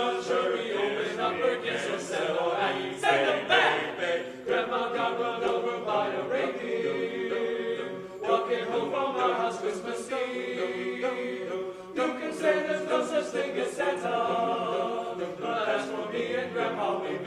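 All-male a cappella chorus singing unaccompanied in close harmony, several voice parts together with no instruments.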